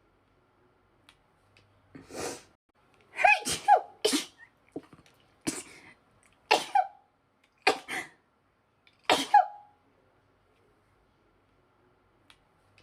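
A woman's sneezing fit: about seven sneezes, roughly one a second, starting about two seconds in and stopping near ten seconds. Each sneeze is a sharp, voiced 'choo'.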